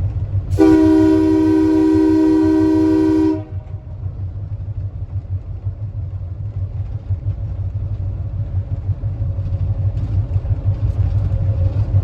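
Train horn sounding one long blast of about three seconds, over the steady low rumble of the train running on the rails.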